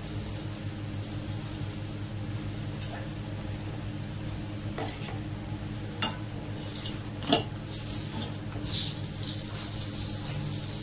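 A metal spatula pressing and scraping a paratha on a flat iron tawa, with sharp clinks about six and seven seconds in, over the faint sizzle of the oiled paratha frying. A steady low hum runs underneath.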